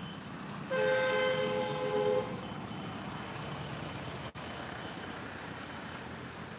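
A vehicle horn sounds once, two steady notes together held for about a second and a half, over a steady background noise.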